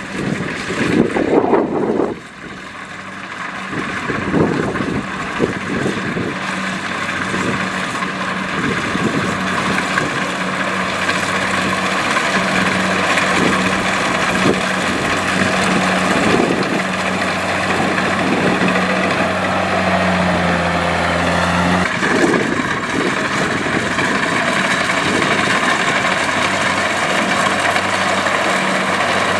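Small tractor's diesel engine running steadily. The first two seconds are louder and rougher, then the sound drops off abruptly.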